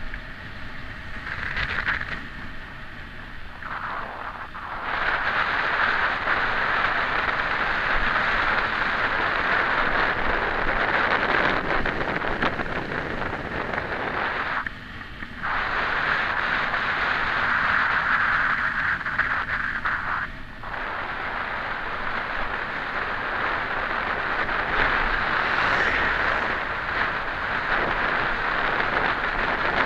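Steady rush of wind on an action camera's microphone, mixed with mountain bike tyres running on asphalt during a fast road descent. It eases off briefly a few times.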